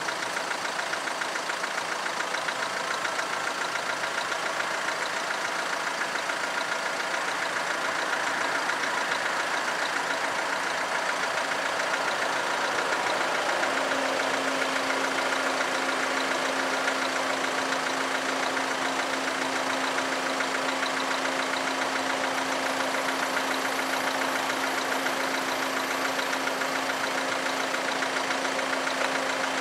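Railway level crossing bells ringing continuously in very rapid strokes, several bells sounding together. A steady low hum joins about halfway through.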